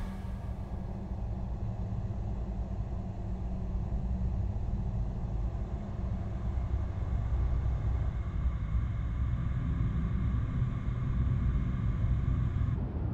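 A car driving along a road: a steady low rumble of engine and tyres.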